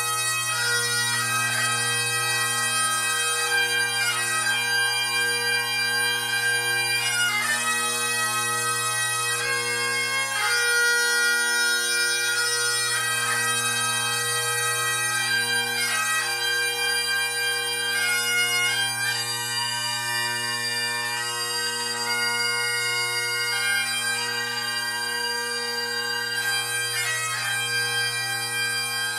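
Bagpipes playing a melody of long held notes over their steady drones.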